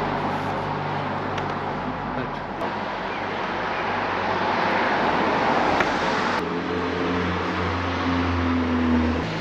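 Steady engine rumble of a motor vehicle running nearby, with a noisy road-traffic wash over it. About six seconds in the tone changes suddenly to a steadier, deeper hum.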